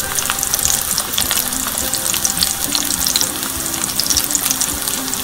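Breaded pork tenderloin frying in shallow oil in a cast-iron skillet: a loud, steady sizzle thick with small pops and crackles.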